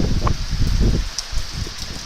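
Storm wind gusting and buffeting the microphone in irregular low rumbles over a steady rushing hiss, with leaves rustling.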